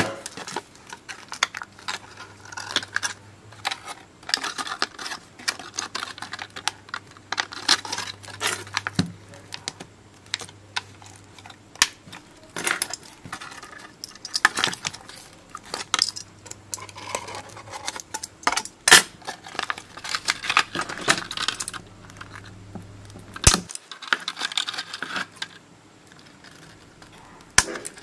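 Aluminium foil wrapping of a lithium-polymer battery pack crinkling and tearing as it is peeled away by hand, a continual irregular crackle with sharper snaps here and there.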